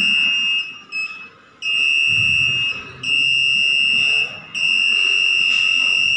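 Electronic buzzers on an Arduino ultrasonic obstacle-alarm circuit sounding one steady, high-pitched tone that breaks off and comes back on several times. The tone sounds while the ultrasonic sensor detects something in front of it, which is the system's warning that something is on the track.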